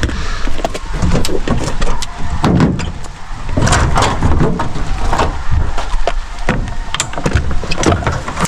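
A steady low rumble with many irregular knocks and rattles, as heard inside a moving vehicle.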